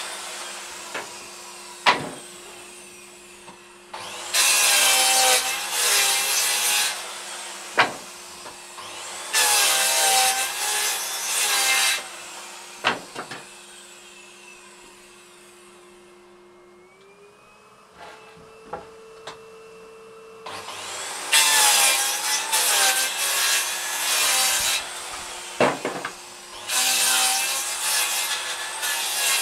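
Makita 5704R circular saw cutting through pieces of wood four times, each cut lasting two to four seconds. A steady hum keeps going between the cuts. Several single sharp knocks come in the gaps.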